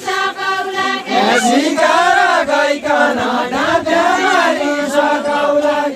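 Voices singing a Deuda, the far-western Nepali folk song, in a chant-like line with long held notes.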